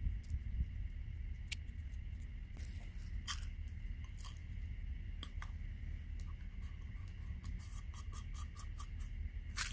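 Scattered small clicks and light metallic taps from handling air-rifle pellet tins and loading a 10-shot rotary pellet magazine, with a quick run of clicks near the end, over a steady low rumble.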